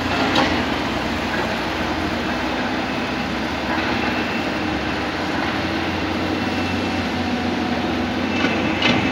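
Steady drone of heavy diesel machinery: a loaded Hino Dutro dump truck under full throttle on the climb, and a Cat excavator digging. A few short metallic clanks stand out, the loudest near the end.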